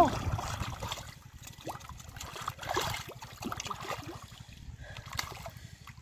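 Hands groping and splashing in shallow muddy water, with small trickling and gurgling sounds. A brief pitched cry sounds at the very start.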